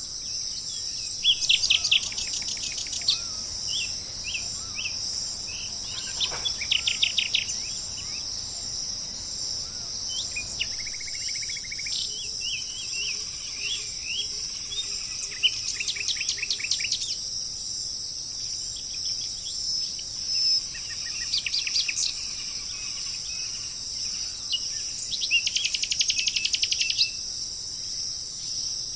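Songbirds singing fast trills of short repeated notes, coming every few seconds, over a steady high-pitched chorus of insects.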